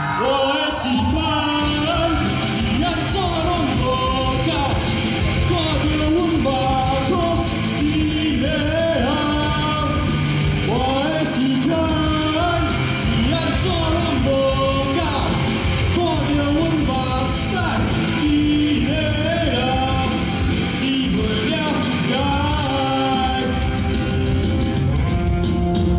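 A singer singing a song live over backing music, amplified through a hall's PA system.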